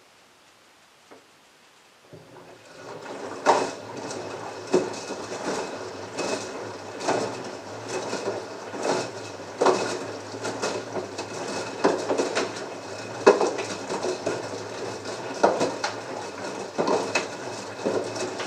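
LG front-loading washing machine drum starting up about two seconds in and tumbling a load of wet clothes, which fall back into the water with a splashing thump about once a second over a steady motor hum. This is the wash stage with the heater on, the drum tumbling while the water heats to 40°C.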